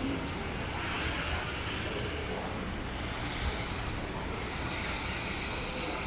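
Steady city ambience dominated by a low, even rumble of road traffic.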